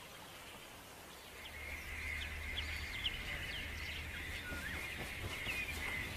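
Marsh ambience: many short bird chirps and calls over a steady high-pitched chorus and a low rumble. It swells up about a second in after a quiet start.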